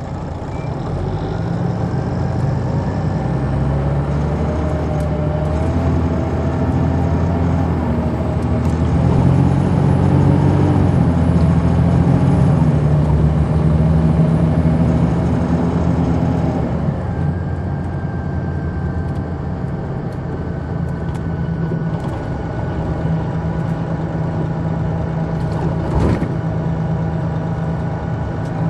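Detroit Diesel Series 60 engine of an MCI D4000 coach heard from the rear seats, pulling under load and getting louder, its pitch rising and dipping, with a thin high whistle over it. About two thirds of the way in it eases off to a quieter, steadier run, and a single sharp knock comes near the end.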